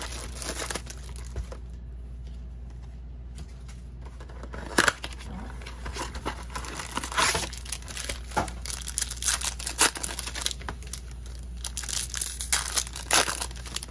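Packs of Topps 2020 Series 2 baseball cards being torn open and handled: irregular crinkling and tearing of the pack wrappers, over a steady low hum.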